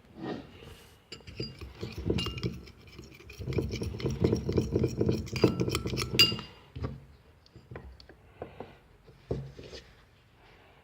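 A stirring utensil clinking and scraping against a glass container as glue, water and colouring are stirred together for slime. There is a busy run of quick clinks in the middle, which thins to a few scattered taps near the end.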